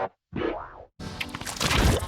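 Cartoon audio heavily warped by editing effects: short, choppy pitched bursts like a distorted voice, then about a second in a loud, dense, noisy burst.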